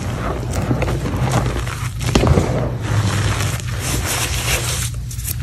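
Hands raking and pressing through a pile of crushed gym chalk powder with glitter, a continuous gritty crunching and scraping that swells a little past two seconds in.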